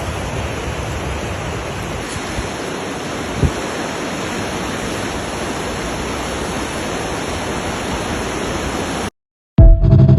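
Steady rush of fast-flowing mountain water, with a single brief knock about three and a half seconds in. The water sound cuts off abruptly near the end, and loud music starts half a second later.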